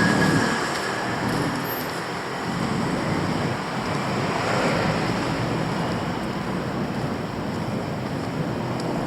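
Steady city street noise: a continuous rushing hiss of passing traffic.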